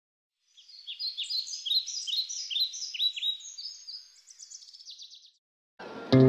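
A bird singing: a run of quick, high, down-slurred chirps ending in a faster series of notes, which stops about five seconds in. Music starts near the end, louder than the bird.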